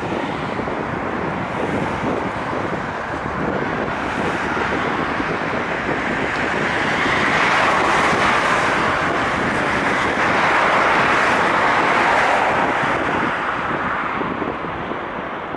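Toei 10-300R electric train running on its rails, a steady rushing noise that grows louder through the middle and eases near the end.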